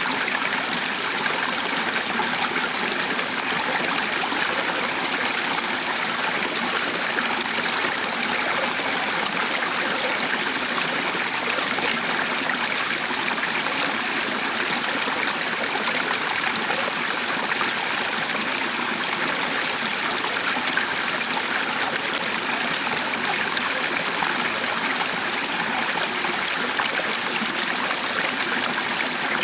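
Running water rushing steadily and evenly, with no breaks or changes.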